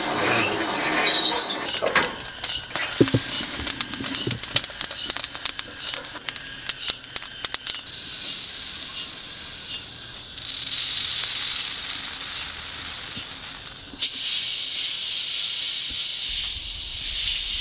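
Freshly roasted coffee beans rattling: poured from a hand roasting pan into a metal sieve as a dense run of clicks, then shaken and stirred in a metal colander as a rushing hiss that comes and goes, to cool the beans just after roasting.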